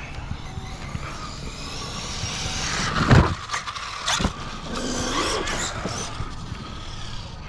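Arrma Kraton 6S EXB RC truck's brushless motor whining as it speeds up, with its pitch rising. There are two hard knocks about three and four seconds in, then the motor revs up and down again.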